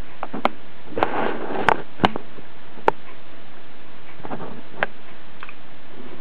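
Steady hiss with several sharp clicks and knocks scattered over it.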